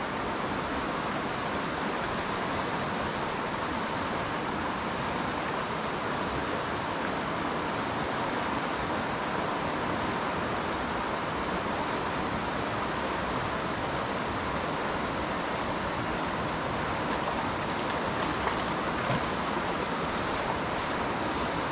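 A mountain trout creek running high and fast in flood: steady rushing of fast water.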